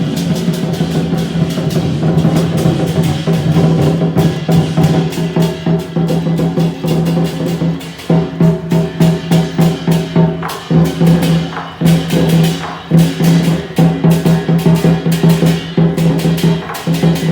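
Temple procession music: drums and cymbals struck in a fast, dense rhythm over a held pitched instrument tone, which breaks into shorter repeated notes about halfway through.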